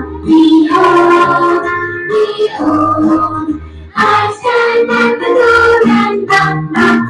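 A group of boys singing a song together, over backing music with a steady low beat.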